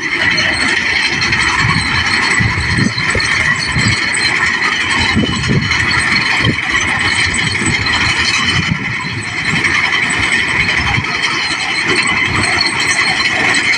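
New Holland paddy combine harvester running steadily: a loud, continuous mechanical rattle with irregular low knocks.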